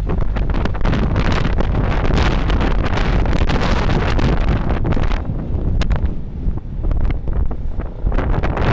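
Wind blowing across the microphone on the open deck of a moving river cruise boat, in uneven gusts that ease for a moment about five seconds in and again near the end.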